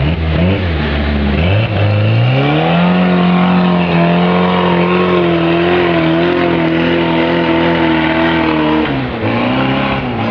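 Off-road vehicle's engine revving: the pitch climbs about two seconds in, holds high and steady for several seconds under load, then drops near the end.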